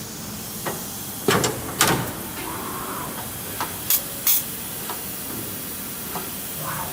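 Kira HPC-30V CNC tap and drill center running, with a steady hiss and four sharp metallic clacks, two close pairs about two seconds apart, plus a few lighter ticks.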